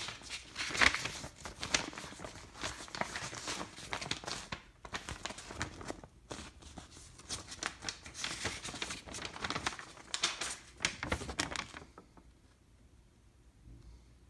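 Paper rustling and crinkling as the pages of an instruction manual are handled and turned, in irregular bursts that stop about two seconds before the end.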